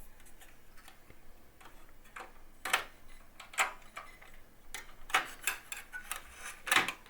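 Irregular sharp clicks and light knocks as a motherboard on its metal tray is fitted into a PC case and lined up with the I/O shield, with several louder clicks in the second half.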